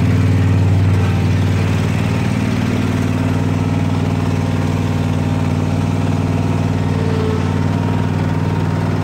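Riding lawn mower engine running steadily as it drives across the yard, a low, even drone that is a little louder in the first second or so.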